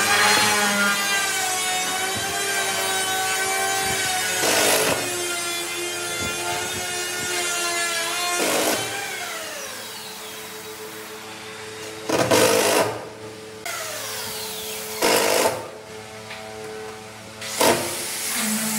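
Cordless drill driving screws through a steel door hinge into a wooden door frame. The motor runs for about eight seconds with its pitch wavering under load and then winds down. Several short bursts follow.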